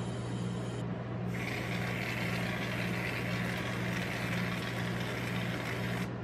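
Aerosol whipped-cream can dispensing cream: a steady hiss that starts about a second in and cuts off near the end, over a constant low hum.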